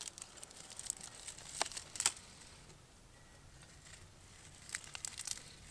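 Dry leaves and tinder crinkling and crackling under hands as they are arranged for a fire, in a few quick spells of crinkles, the sharpest about two seconds in and again near the end.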